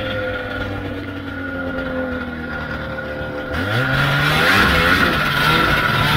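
Old Ski-Doo Formula Z snowmobile's two-stroke engine running at low speed, then revving up quickly about three and a half seconds in. It stays louder and higher after that, with more hiss.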